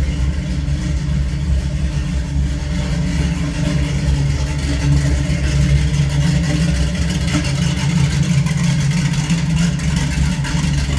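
V8 (351 Cleveland) of a 1970 Boss 302 Mustang idling steadily, heard at the tailpipes, exhaling through FPA headers, a Dr. Gas X-pipe crossover and Dr. Gas SpinPro mufflers.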